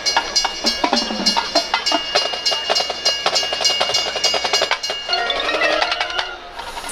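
High school marching band playing, led by the percussion section: fast, closely packed sharp strikes with ringing mallet notes, easing briefly near the end.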